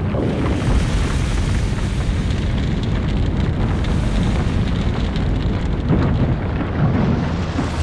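A yacht's anchor ploughing through a Posidonia seagrass bed as it is pulled up, heard underwater as a continuous deep rumble with gritty scraping and crackling.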